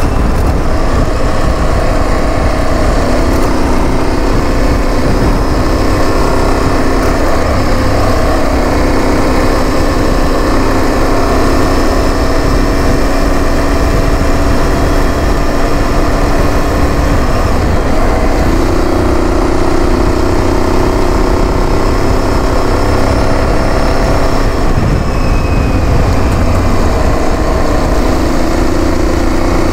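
Aprilia Tuareg 660's parallel-twin engine running at road speed over a gravel track, a steady drone over a constant low rumble. The engine note steps up a little about 18 seconds in, dips around 24 seconds and rises again near the end as the speed changes.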